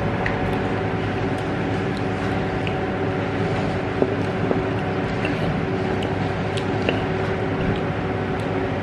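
Steady mechanical hum of restaurant room noise, with a few faint clinks of cutlery on tableware.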